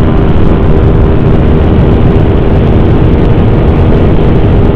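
Yamaha R15 motorcycle's 155 cc single-cylinder engine held at high, steady revs at top speed, with heavy wind rush on the microphone.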